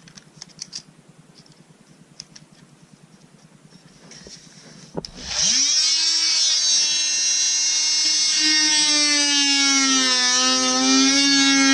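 Light handling clicks, then a DeWalt DWE315 corded oscillating multi-tool switches on about five seconds in and runs with a loud, steady buzzing whine. A few seconds later its pitch drops a little and the tone thickens as the wood-with-nails blade goes into the wood to cut.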